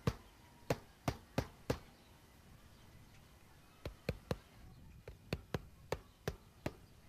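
Hammer driving roofing nails through the flange of a roof turbine's base: sharp separate blows, about six in a run, a pause of about two seconds, then another run of about eight.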